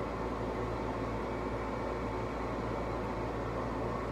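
Steady background hum with an even hiss, unchanging throughout: the drone of running machinery such as a fan or air-conditioning unit.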